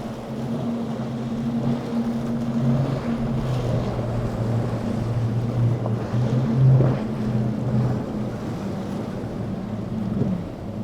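Motorboat engines droning as a boat runs through the inlet, over wind and water noise. The engine note steps slightly in pitch, is loudest a little past the middle, and drops away near the end.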